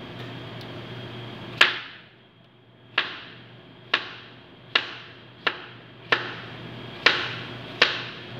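A kitchen knife chopping through melon flesh onto a plastic cutting board: about eight sharp knocks, a little under a second apart, each echoing briefly in a tiled room.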